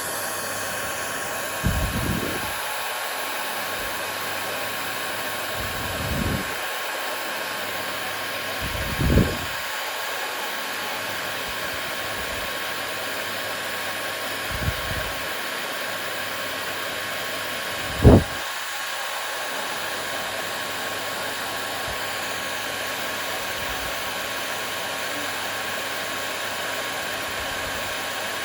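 Hair dryer running steadily: an even whooshing hiss with a constant hum-like tone. Five short low thumps break through it, the loudest about two-thirds of the way in.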